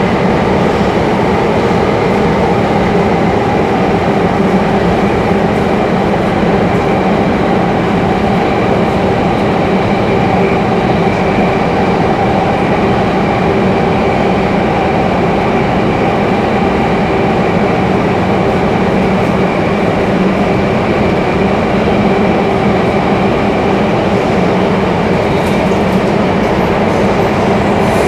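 Singapore MRT subway train running at a steady speed, heard from inside the carriage: a continuous rumble of wheels on rail with a steady hum of several motor tones over it, with no change in speed.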